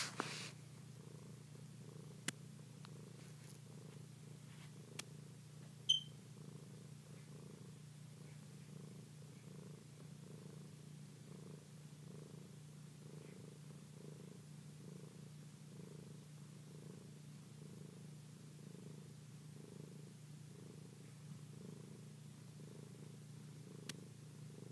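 Domestic cat purring steadily close to the microphone, the purr swelling and fading with each breath about once a second. A few sharp clicks, the loudest about six seconds in.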